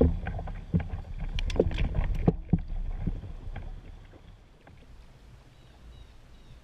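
A canoe being poled upstream through a shallow rapid: a string of sharp knocks and clunks from the setting pole, over a low rush of moving water. It drops to a much quieter low steady wash after about four seconds.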